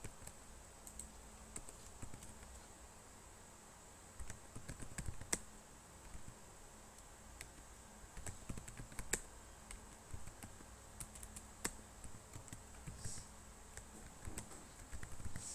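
Typing on a computer keyboard: faint, irregular key clicks with uneven gaps, a few strikes louder than the rest.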